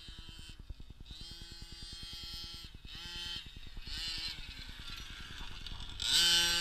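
The 26cc two-stroke gas engine of a Losi 5ive-T RC truck running and revving in repeated bursts, rising, holding and falling in pitch. It is loudest in a held rev about six seconds in, when the truck is close.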